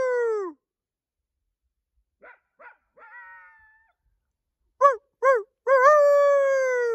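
Human imitation of a coyote howl: two short yips, then a long howl that slides down in pitch. It trails off about half a second in and is given again loudly from about five seconds in. Between the two, a much fainter call of the same yip-yip-howl shape comes back.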